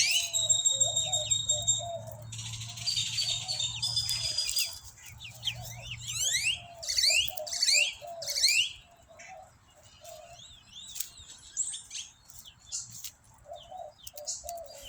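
Wild birds chirping and trilling with quick sweeping calls, over the short low clucks of backyard chickens.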